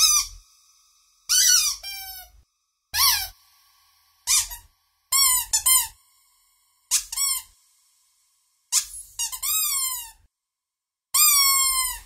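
Squeaky dog toy squeezed over and over: about a dozen short squeaks at irregular intervals, some in quick pairs, each falling in pitch.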